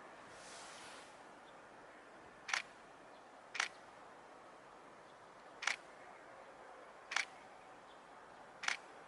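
Camera shutter clicks: five single shots, one to two seconds apart, over a faint steady background hiss.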